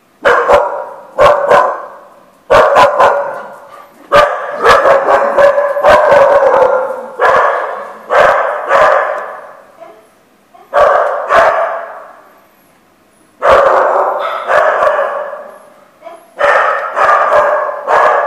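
A dog barking loudly and repeatedly, in runs of one to several barks with short pauses between them.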